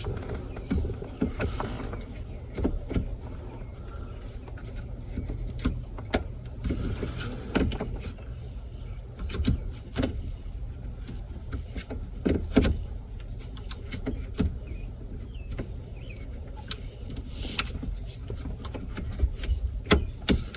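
Scattered light clicks and taps as the new cruise control switch assembly is handled and worked into the pickup's steering column, over a steady low hum.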